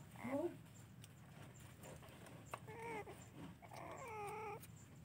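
Puppy whimpering: a short rising whine at the start, then two more whines about three and four seconds in, the last one the longest.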